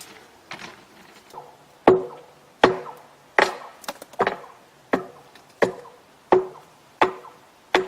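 Repeated hammer blows, about one every three-quarters of a second, each with a short metallic ring; the blows grow louder about two seconds in.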